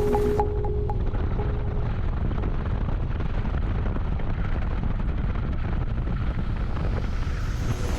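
Steady, muffled low rumble of a motorcycle on the move, engine and wind noise together. The last notes of background music fade out about two seconds in.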